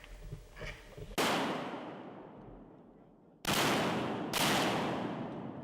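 Three shotgun shots: one about a second in, then two more about a second apart past the middle, each with a long fading echo.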